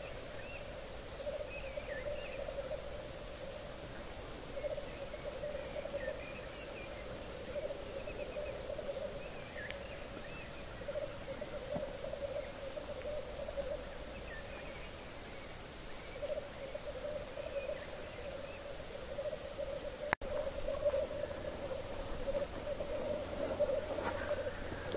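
A chorus of lekking male black grouse giving their continuous bubbling, cooing song: a low, pulsing coo that never stops. Short higher calls come and go above it.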